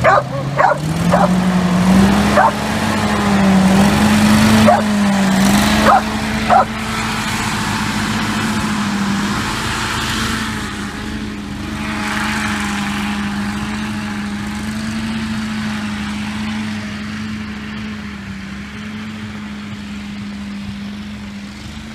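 Marlin MkIII hovercraft's engine and ducted lift/thrust fan spinning up over the first two seconds, then running at a steady pitch as the craft moves off, growing slowly fainter as it flies away. Several short sharp sounds come over the first seven seconds.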